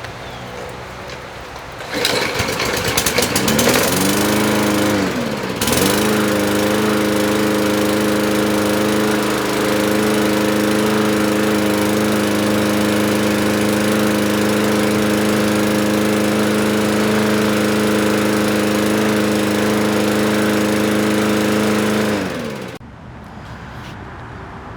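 Small lawn mower engine starting, its speed dipping and catching for a few seconds, then running at a steady speed for about sixteen seconds before shutting off.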